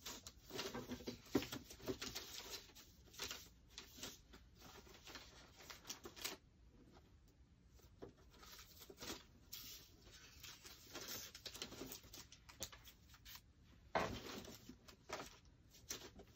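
Loose paper ephemera being rustled and shuffled by hand while sorted through, in irregular short rustles, with one louder rustle near the end.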